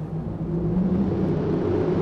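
Remanufactured 5.7-litre HEMI V8 in a Dodge Ram 1500 pickup running under throttle; its engine and exhaust note gets louder about half a second in, then holds steady.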